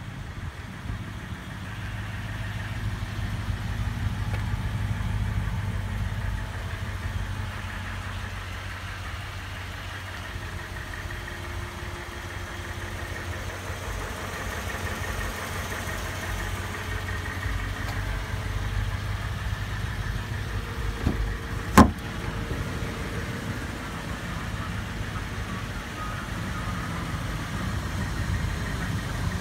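2014 Toyota Tundra's 5.7-litre V8 idling steadily, with one sharp click about three-quarters of the way through.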